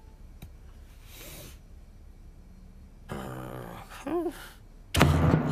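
A cartoon character's short wordless breathy and nasal noises, ending in a brief rising-and-falling "hmm". About five seconds in, a loud music hit cuts in.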